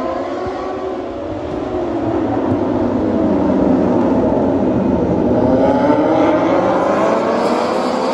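A pack of Moto2 racing motorcycles, whose engines are Triumph 765 cc three-cylinders, passing together at speed. Many engines overlap, rising and falling in pitch as the bikes go by. The sound builds to its loudest around the middle and stays loud.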